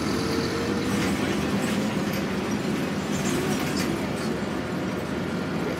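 Steady rumble of a city bus's engine and road noise heard from inside the passenger cabin while the bus is moving, with a faint whine that rises slightly over the first second or so.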